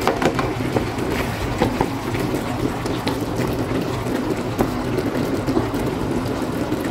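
A spatula stirring and scraping through a simmering cream sauce of chicken and peppers in a pan, with scattered clicks and taps against the pan, over a steady low hum.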